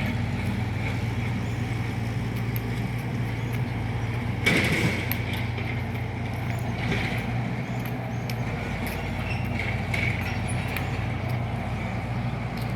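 Road traffic and engine noise: a steady low engine hum runs throughout, with a short loud burst of noise about four and a half seconds in.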